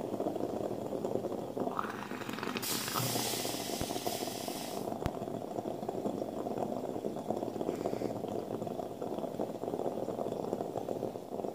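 Aluminium stovetop moka pot on a gas burner bubbling and sputtering steadily as the brewed coffee spurts up into the top chamber, the sign the brew is nearly done. A louder hiss comes in about two and a half seconds in and lasts about two seconds.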